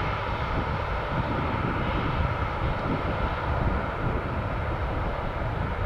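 Jet engines of a Lufthansa Airbus A340 airliner running with a steady rushing noise after landing.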